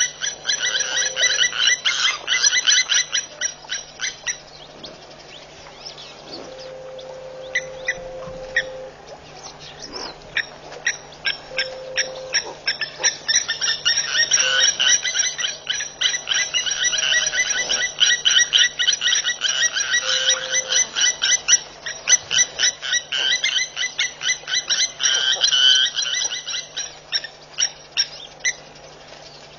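Rapid, high-pitched pulsing animal calls, coming in long runs with quieter stretches between, over a faint low steady hum.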